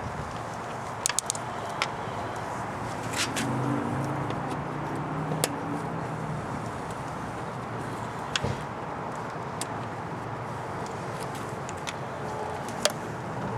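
Toyota Celica GT-S's engine running steadily, with a few sharp clicks scattered through.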